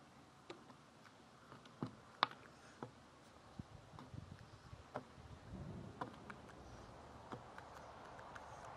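A crow's beak pecking and picking at peanut pieces on a wooden platform feeder: faint, irregular sharp taps and clicks, about a dozen spread out unevenly.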